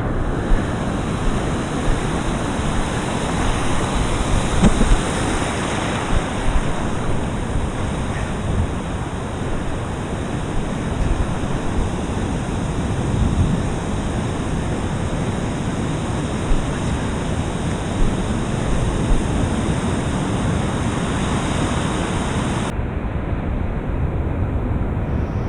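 Ocean surf washing steadily, mixed with wind noise on a head-mounted GoPro.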